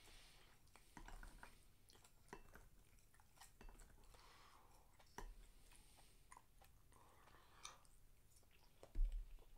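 Faint chewing and mouth sounds of a person eating, with light clicks of chopsticks against a bowl and a soft thump near the end.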